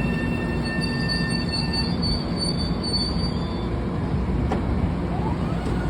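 M7 electric multiple unit running, with a steady low rumble and a high, multi-tone whine from its traction motors that holds a steady pitch and fades out after about two or three seconds.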